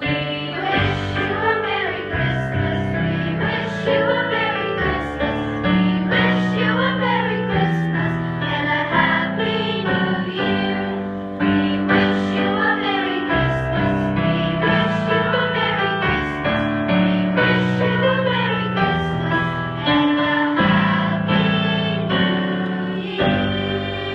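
Music with singing voices and piano accompaniment.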